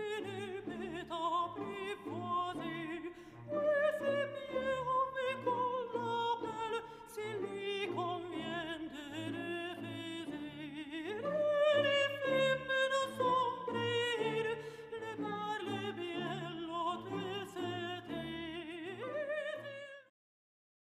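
Opera music: a singer with strong vibrato over an orchestral accompaniment, cutting off abruptly near the end.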